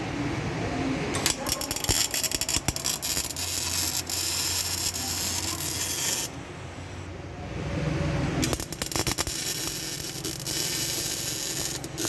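Metalwork on a car body: rapid, irregular crackling and clicking of metal, in two stretches with a quieter pause in the middle.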